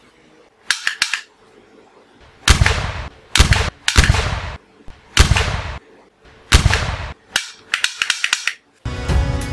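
Pistol gunshots, a string of sharp cracks each trailing off in an echo, some single and some in quick runs of two or three, with short gaps between them.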